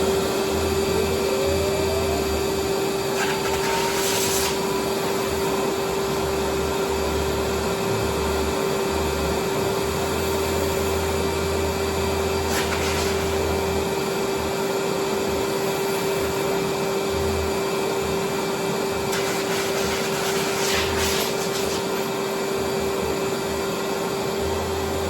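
Dog-grooming blow dryer with a hose, running steadily: a constant whine over a loud rush of air. A few brief moments where the hiss grows sharper.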